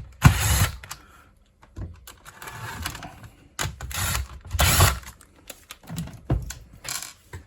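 Irregular clicks, knocks and scrapes of a Compaq 286 keyboard's plastic case and parts being handled and taken apart.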